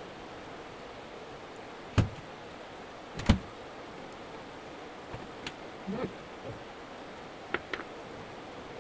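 Steady hiss with two sharp knocks about a second and a half apart, the second the louder, followed by a few faint light clicks.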